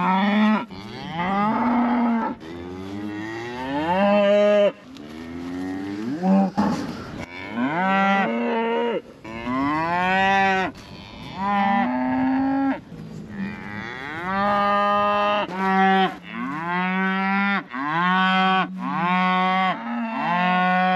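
Scottish Highland cattle mooing, one long call after another with several animals overlapping at different pitches. The herd is calling because a calf has got out.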